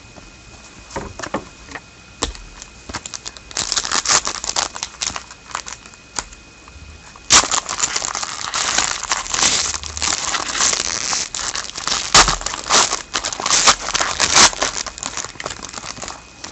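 Trading card pack wrapper being crinkled and torn open: a few light clicks of cards being handled at first, then crinkling that becomes louder and continuous about halfway through.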